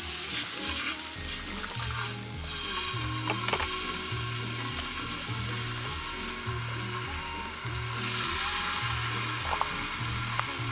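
Food sizzling in a hot frying pan, a dense hiss that starts abruptly, with occasional sharp pops. Background music with a regular bass beat plays underneath.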